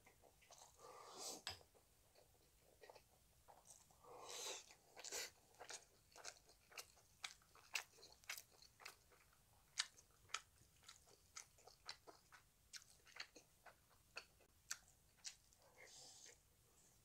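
A person chewing and eating instant black-bean noodles, with many soft, quick, wet mouth clicks. There are a few longer slurps in the first five seconds.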